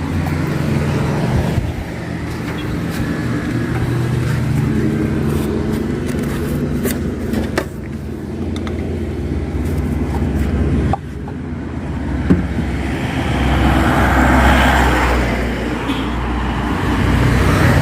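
A motor vehicle engine running steadily with road traffic around it, with a few sharp clicks and an abrupt change in the sound about eleven seconds in.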